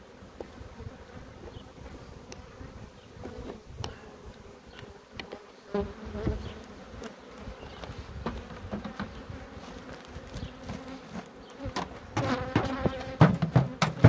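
Honeybees buzzing around an open wooden hive, with scattered clicks, then a cluster of louder knocks near the end as the hive is closed.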